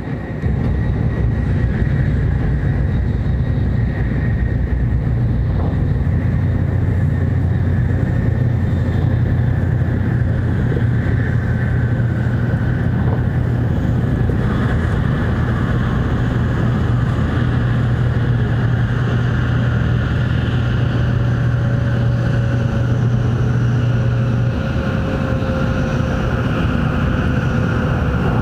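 N700 Series Shinkansen running noise heard from inside the cabin: a loud, steady low rumble that jumps louder about half a second in as the train runs through a tunnel. Faint motor whines slowly fall in pitch as the train slows toward its stop.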